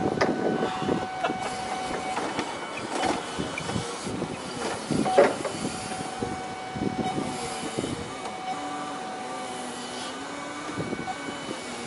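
Caterpillar forklift working as its forks are driven in under a heavy load, with a steady high whine that drops out in the middle and comes back. A few sharp metal knocks are heard, near the start and about three and five seconds in.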